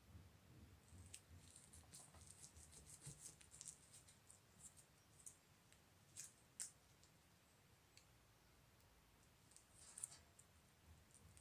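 Faint crackle and clicks of hook-and-loop (velcro) tabs being pressed together by hand: a run of fine ticks for the first few seconds, a couple of sharper clicks about six seconds in, and another near the end.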